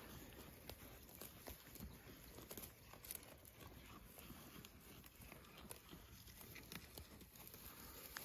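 Faint, irregular crisp snaps and rustles of goats tearing off and chewing grass and clover.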